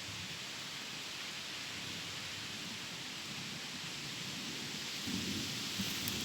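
A steady hiss like rain falling, with a brief louder rustle about five seconds in.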